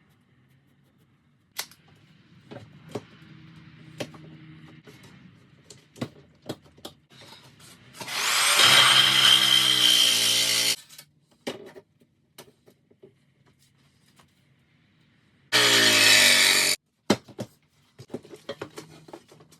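Power drill running in two bursts, a longer one of about three seconds that spins up fast and a shorter one of about a second, with scattered handling clicks and knocks around them.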